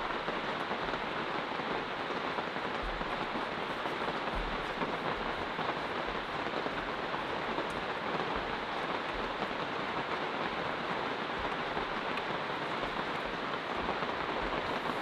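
Steady rain falling on the yurt roof, an even hiss with no breaks.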